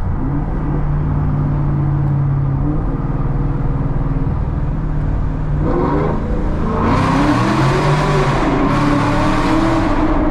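Chevrolet Camaro SS 6.2-litre V8 with Kooks headers and a Borla ATAK exhaust, heard from inside the cabin. It cruises steadily at first; about two-thirds of the way in the revs climb and the exhaust gets much louder and harsher as the car accelerates hard into a tunnel, with a brief dip partway through the pull.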